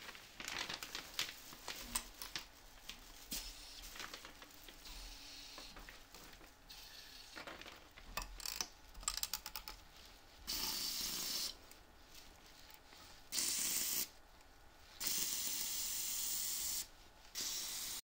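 Cleaning liquid sprayed onto an air conditioner in four hissing bursts, each lasting from about half a second to nearly two seconds, after several seconds of clicking and rattling handling noise.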